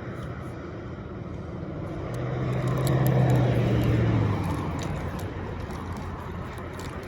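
A motor vehicle passing, its engine hum swelling about two seconds in and fading out by about four and a half seconds, over a steady background of traffic noise.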